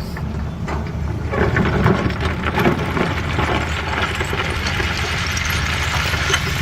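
Caterpillar 320D excavator's diesel engine running steadily. From about a second in, stones scrape and clatter against each other and the steel bucket as it digs and loads them.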